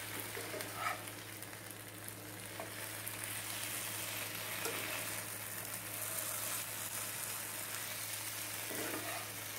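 Thin-sliced potatoes sizzling steadily in sesame oil in a non-stick pan while a slotted spatula stirs and turns them.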